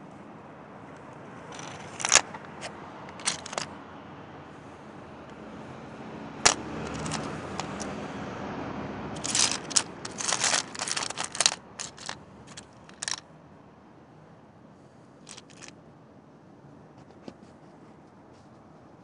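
Irregular sharp clicks and clinks over a steady low hiss, in scattered clusters, busiest from about nine to thirteen seconds in: handling noise around the tray of rough crystals.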